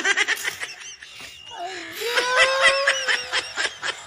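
People laughing hard in quick, repeated bursts, with a long drawn-out high squeal of laughter from about halfway through.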